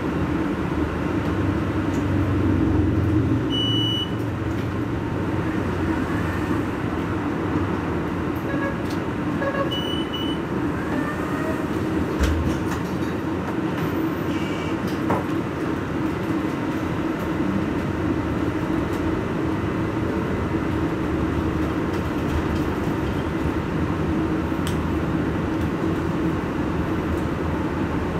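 Irizar ie tram battery-electric bus standing still, its on-board systems giving a steady hum. Two short high tones sound about four and ten seconds in.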